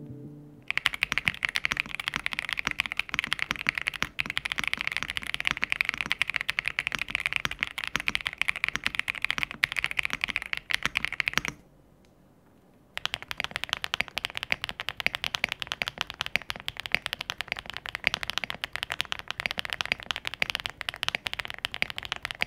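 Typing sound test on two 65% plastic-case mechanical keyboards, the Aula F65 with swapped switches and the Royal Kludge R65: fast, continuous keystroke clatter that breaks off for about a second near the middle, then starts again.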